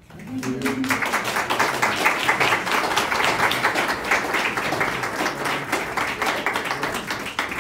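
Audience applauding: many people clapping at once, the applause swelling up within the first second and easing slightly toward the end.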